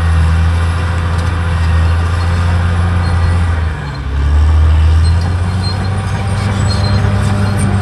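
Caterpillar D6R XL bulldozer's diesel engine running steadily, with a brief dip in loudness about four seconds in and a shift in the engine note about a second later.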